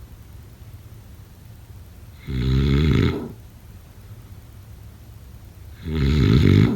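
Snoring: two loud snores, each about a second long and about three and a half seconds apart.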